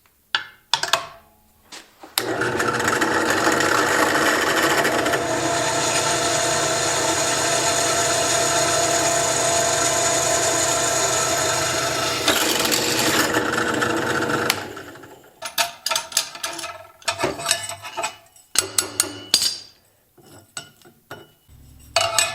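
Drill press motor running steadily for about twelve seconds while drilling into a metal go-kart sprocket, then spinning down. Afterwards come scattered clicks and knocks of metal parts being handled.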